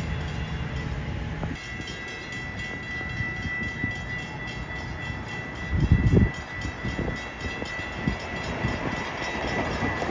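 Passenger train passing, wheels rumbling and knocking over the rails, loudest about six seconds in. A steady low hum stops and a steady high ringing tone starts about one and a half seconds in.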